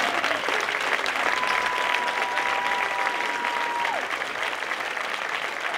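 Spectator crowd applauding steadily. About a second in, one long steady high note is held above the clapping for nearly three seconds, then drops off.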